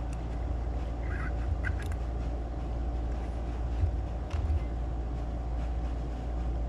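Steady low mechanical hum holding several fixed pitches, with a few faint light clicks and taps from small parts being handled.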